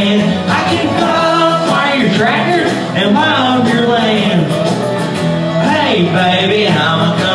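A man singing a country song into a microphone over instrumental accompaniment, his voice sliding between held notes.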